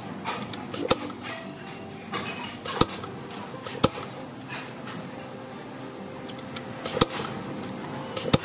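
Factory machinery running with a steady hum, broken by five sharp knocks at irregular intervals, one to three seconds apart.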